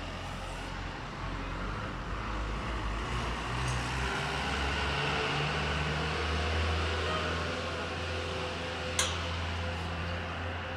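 Steady low mechanical hum with a background hiss, and one sharp click about nine seconds in.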